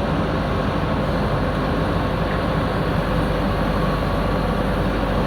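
Diesel engine of a JCB backhoe loader running steadily at a constant pace.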